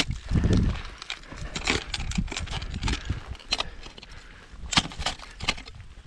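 Ice axes swung into steep water ice, giving a series of sharp, irregular strikes, the loudest about three and a half and nearly five seconds in, with low thumps near the start.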